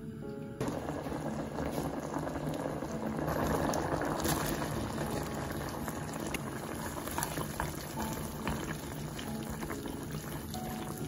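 Cream sauce of fresh cream and milk simmering in a frying pan, bubbling with a dense crackle of small pops. It is loudest a few seconds in.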